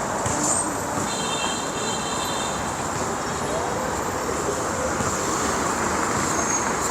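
Steady city traffic noise: passing vehicles and tyres on the road, with a faint high tone for a moment about a second in.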